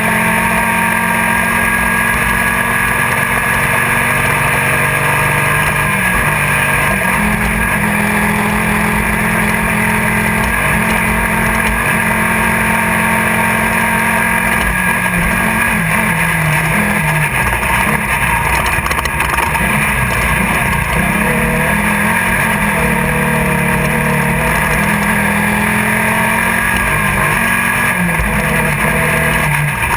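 Class 1600 off-road race buggy at speed, heard from inside the car: its air-cooled 1600 cc Volkswagen flat-four running hard, the engine pitch dipping and climbing again around the middle and near the end, over a steady hiss.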